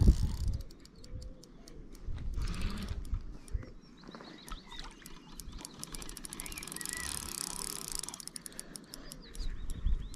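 Fishing reel clicking in fast runs of ticks while a hooked fish is played in, the ticks densest near the start and again near the end.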